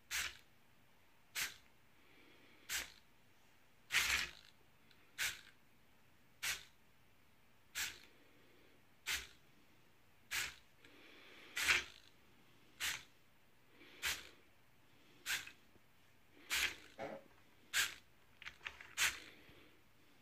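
Hobby servo motors in a segmented worm robot whirring in short bursts at a steady pace of about one every second and a quarter as they move the body segments. Near the end a few extra short clicks come between the bursts.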